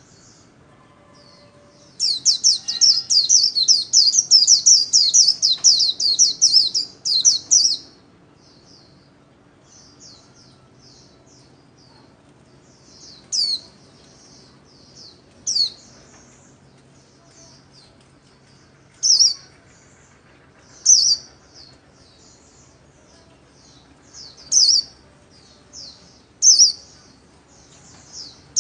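White-eye (vành khuyên) singing: about two seconds in comes a fast, loud run of high twittering notes lasting some six seconds, the rapid 'líu' song that keepers train these birds for. Scattered single high chirps follow.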